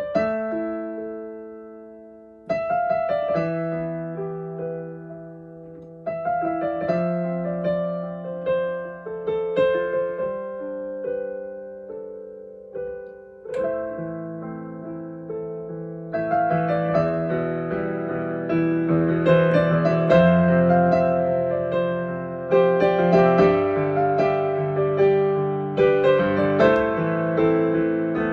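Solo piano improvising slow chords that are struck, then left to ring and fade. About halfway through, the playing grows fuller and louder, with more notes moving under and over the held chords.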